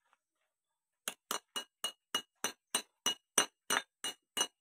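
Hammer tapping a steel drift to drive the flywheel bearing into the centre of a John Deere 5310 tractor's flywheel. The strikes are sharp, ringing metal blows, about three or four a second, and start about a second in.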